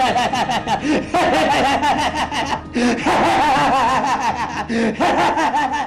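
Loud laughter in rapid, rhythmic 'ha-ha' pulses, the pitch bouncing up and down, with short pauses about one, three and five seconds in.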